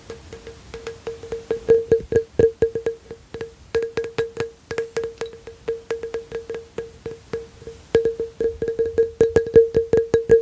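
Rapid, uneven fingertip tapping on a hard object that rings at one steady pitch with each tap, several taps a second, in quick runs.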